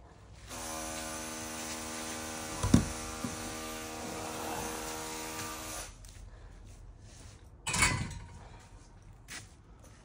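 A power tool's electric motor runs at a steady pitch for about five seconds and then stops. A sharp thump comes while it runs, and a louder heavy knock follows about two seconds after it stops.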